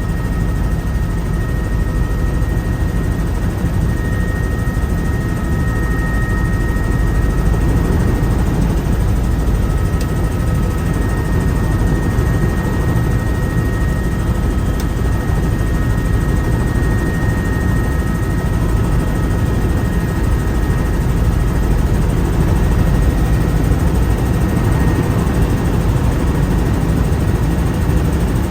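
Helicopter in flight: steady, loud rotor and engine noise with a thin constant whine above it.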